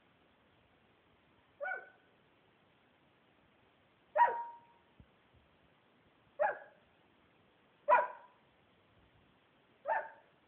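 A dog barking at the closet where its treats are kept, asking for a treat: five short single barks, each a couple of seconds apart.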